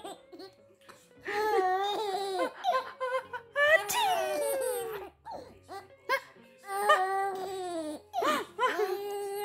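Baby laughing and squealing in about five short vocal bursts with gliding pitch and brief pauses between them.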